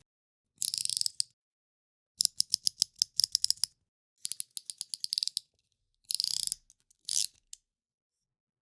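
Snap-off utility knife (box cutter) with its blade slider being pushed through its notches, giving sharp ratcheting clicks in five separate runs, some fast and some a notch at a time at about eight clicks a second.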